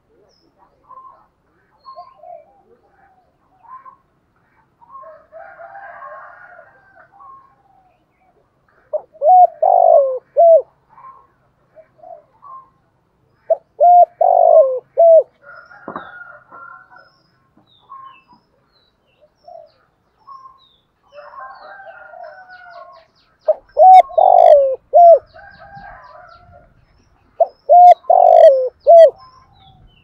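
Spotted dove cooing: four loud phrases of three or four notes each, a few seconds apart, with softer rolling coos between them. This is the calling coo used by a decoy dove to lure wild doves.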